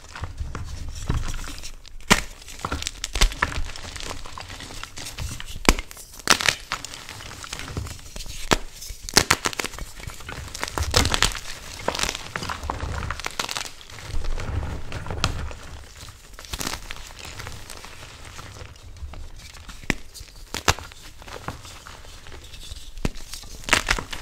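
Blocks of BSN Plain Jane gym chalk (magnesium carbonate) crushed and crumbled by hand: a dense, irregular run of crunches and crackles, some sharper and louder than the rest, over the soft rub of powder between fingers.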